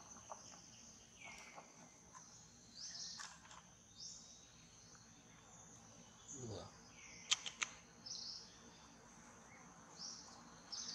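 Faint forest background: birds chirping in short falling calls over a steady high insect drone. There are a few sharp clicks about seven seconds in.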